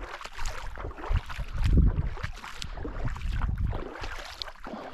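A person wading through shallow water over a gravel and rock lakebed: irregular sloshing and splashing as the legs push through the water, with wind rumbling on the microphone.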